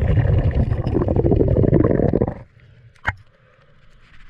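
Muffled water rushing and bubbling around an action camera plunged under the river surface, loud for about two and a half seconds and then cutting off abruptly; one sharp click follows about three seconds in.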